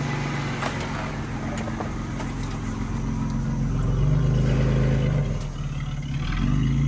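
SUV engine running as the vehicle turns around and moves off, its pitch rising and falling twice as it is given gas. A few short knocks sound in the first two seconds.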